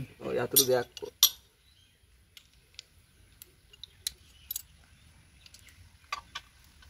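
Faint, scattered metallic clicks and clinks of a spanner and loosened nuts and bolts as the flange of a two-stroke three-wheeler's exhaust silencer is unbolted, about eight light taps spaced irregularly.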